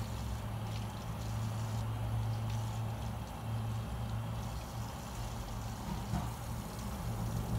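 Kitchen tap running into a stainless-steel sink while wet hair bundles are squeezed and rinsed by hand, over a steady low hum.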